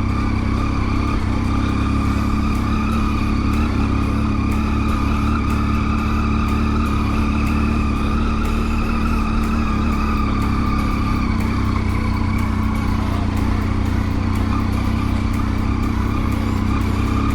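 Motorcycle engine running at a steady speed while riding, with a constant low wind rumble underneath.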